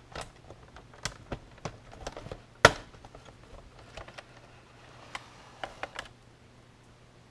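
Plastic clicks and snaps as the clipped-together halves of a laptop's plastic case are pried apart, with one loud sharp snap about two and a half seconds in.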